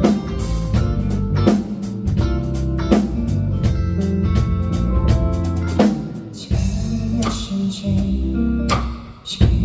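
Band playing an instrumental passage: guitar chords over a drum kit with regular drum hits, and no singing.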